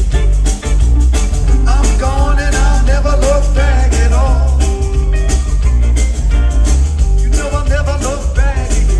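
A live rock band playing: electric guitar, drum kit, bass guitar and keyboards, with a heavy, steady low end.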